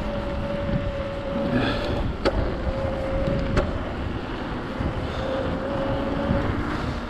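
Mountain bike rolling down a trail: steady tyre and wind rumble with a faint, even hum and two sharp knocks, about two and three and a half seconds in.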